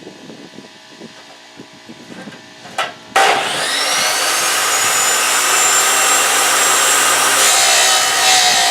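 A few light metal clicks, then about three seconds in a power tool starts with a rising whine and works the metal bar stock with a loud, steady grinding noise.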